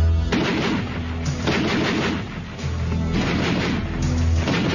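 Several bursts of gunfire in quick succession, each about half a second long, over background music.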